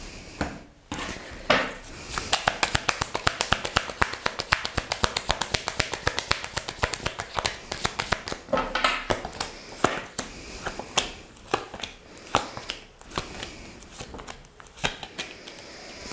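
A deck of tarot cards being shuffled by hand: a fast run of soft card clicks and slaps, about five a second, that thins out over the last few seconds.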